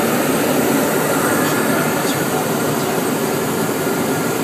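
Steady cabin noise inside a Cessna Citation Ultra twin-turbofan business jet on approach: a loud, even rush of airflow and engine noise.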